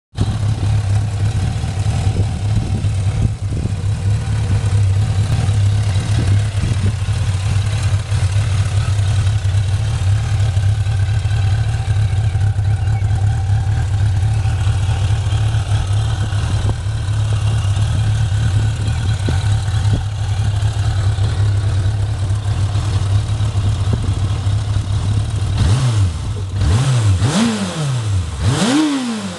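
Suzuki GSX 600 F Katana's inline-four engine idling steadily, then revved in several quick throttle blips over the last few seconds, each one rising and falling in pitch.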